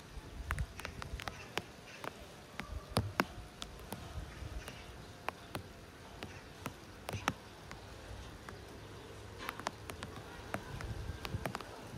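Low wind rumble on the microphone of a pole-mounted camera, broken by irregular sharp clicks and taps, with a faint steady buzz underneath.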